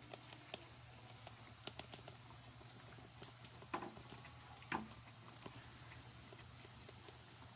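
Squash fritters frying in oil in a wok over a low flame: a faint, steady crackle with scattered small pops, and two louder clicks about four and five seconds in.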